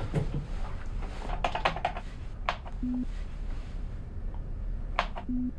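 Keys clicking on a keyboard console: a quick run of taps, then single presses, with two short low electronic beeps.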